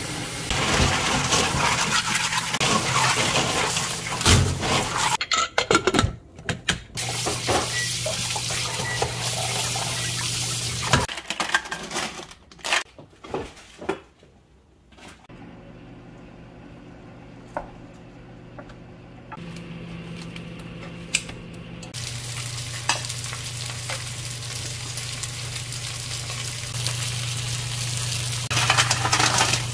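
Kitchen cooking-prep sounds. Tap water runs over seafood rinsed in steel bowls and a mesh strainer, with clinks and knocks of steel bowls. From about two-thirds of the way through, a pot of liquid sizzles and bubbles on the gas stove, over a steady low hum.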